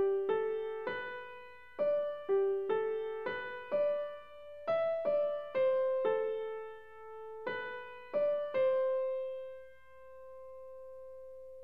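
Background piano music: a slow melody of single struck notes that thins out and ends on one long held note fading away near the end.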